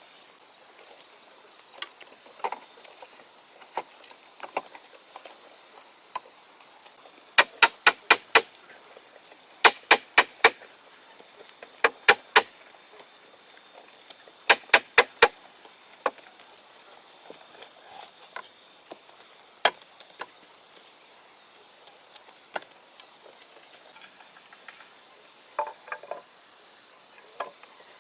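Sharp knocks in quick runs of four or five, several seconds apart, with scattered single clicks between them.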